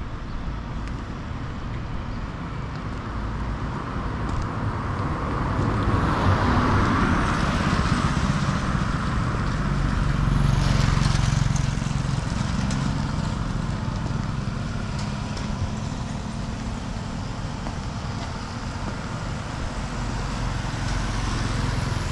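Motorbike traffic passing along a wet street, over a steady background of street noise. Passes swell and fade about a quarter of the way in and again about halfway, the second the loudest.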